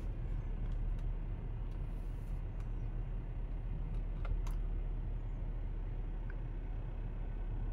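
A car heard from inside its cabin while it drives slowly, with a steady low rumble of engine and road noise. A few faint clicks come through, the clearest about four and a half seconds in.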